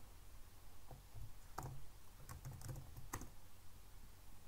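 Scattered keystrokes on a computer keyboard: a handful of separate key presses spread over a few seconds, the sharpest about one and a half and three seconds in.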